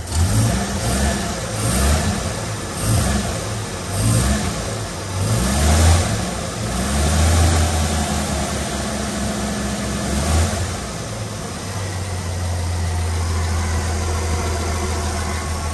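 1950 Chevrolet 235 straight-six engine revved repeatedly by hand at the carburetor throttle linkage, a string of quick blips for about the first ten seconds, then dropping back to a steady idle. It runs cleanly, without misfires.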